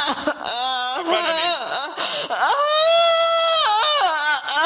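A woman wailing and crying out in high, wavering cries: several short ones, then one long held cry about halfway through that falls away near the end.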